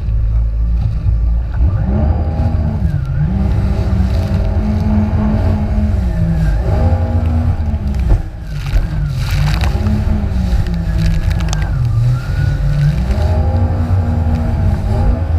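Jet ski engine revving up and down several times as the throttle is worked, over a heavy low rumble, with a sharp knock about eight seconds in.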